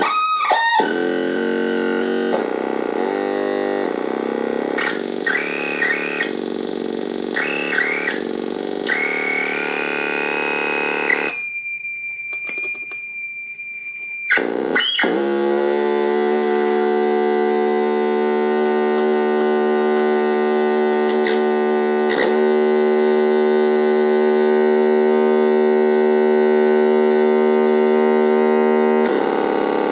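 Homemade square-wave oscillator synthesizer (the Ostsillyamat) buzzing through its own small speaker. Its pitch jumps and glides as the knobs are turned, then it gives a thin high tone for a few seconds. About halfway in it settles into a steady, harsh low drone.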